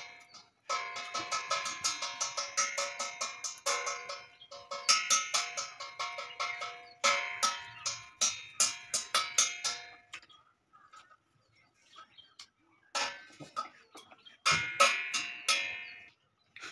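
A metal bell clanging rapidly and repeatedly in bursts of a few seconds, with a pause of a few seconds after about ten seconds in.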